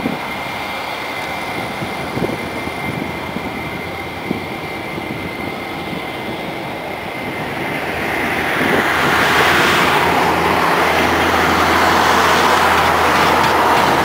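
Airbus A320's jet engines whining steadily as the airliner lines up, then spooling up about eight seconds in, the engine noise swelling into a loud, steady rush as takeoff thrust is set for the takeoff roll.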